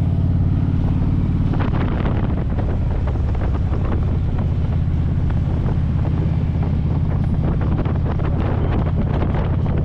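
Motorcycle engine running steadily while riding, a low even drone, with wind rushing over the microphone that grows louder about a second and a half in.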